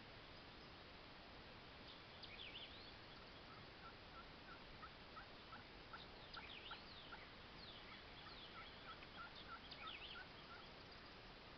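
Wild turkey calling faintly: two runs of short, evenly spaced notes, about three a second, with a songbird chirping higher above them now and then.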